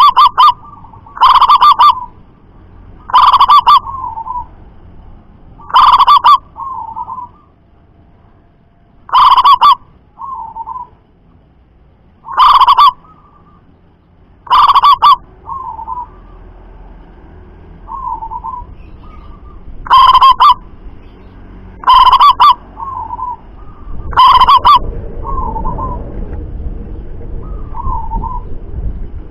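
Zebra doves (perkutut) cooing: about ten loud call phrases a couple of seconds apart, with softer, shorter coos in between. A low background rumble rises near the end.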